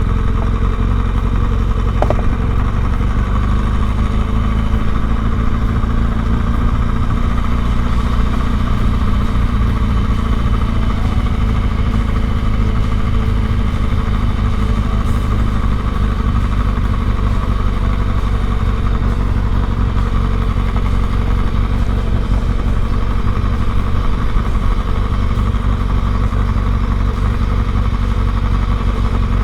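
Motorcycle engine running steadily as the bike is ridden, heard from on board.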